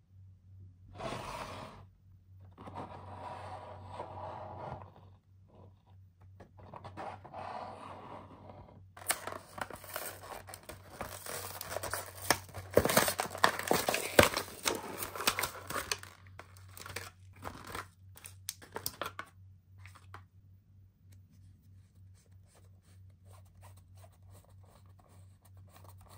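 Toy packaging being torn open and crinkled by hand. A few short rustles come first, then a longer stretch of dense tearing and crackling with sharp clicks in the middle, which tapers to faint scratching. A steady low hum runs underneath.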